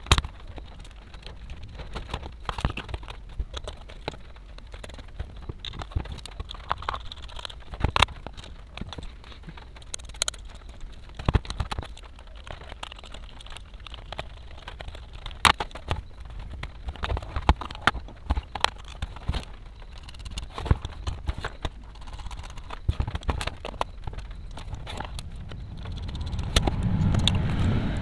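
Irregular clicks and knocks of plastic modular switches, small screws and nuts being handled and fitted into a laminate switchboard sheet on a tabletop. A louder low rumble of handling comes near the end.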